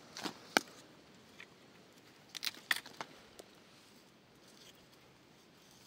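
Wild mountain pistachio clusters being snapped off a branch by hand, with sharp snaps and crackles of stems and leaves: two near the start and a quick run of them a little over two seconds in.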